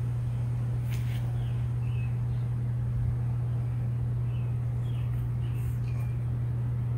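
A steady low hum, with a few faint, short high chirps over it.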